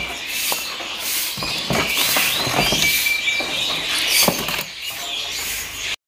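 Many caged songbirds chirping at once, short rising-and-falling calls repeating rapidly, with scattered light clicks and rustling among the cages.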